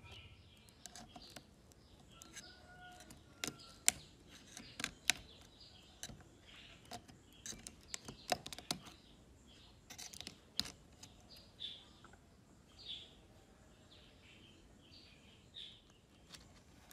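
Irregular sharp clicks and taps of steel tweezers prying at and lifting parts out of an opened old iPhone's metal-and-plastic housing. Faint high chirps come and go in the background, mostly in the second half.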